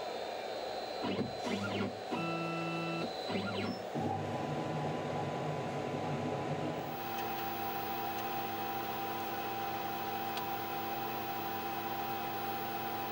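EVO One desktop CNC mill running after the cut, a steady machine hum with short stepped motor whines about one to four seconds in as the spindle moves clear of the finished pocket. A steadier whine sets in about halfway through, and the sound fades out near the end.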